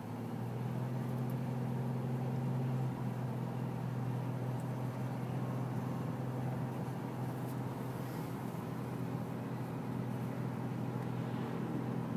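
Car driving on a highway, its engine and tyre noise a steady low drone inside the cabin, shifting slightly about three seconds in.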